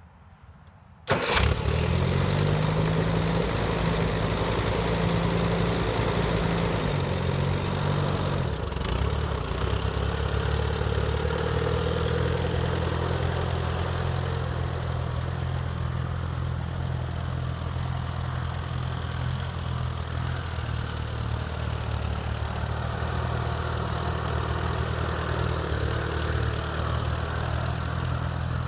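1960 Allis-Chalmers D14's four-cylinder gas engine starting suddenly about a second in and running. Its speed drops and changes around eight seconds in, then it runs steadily as the tractor drives off.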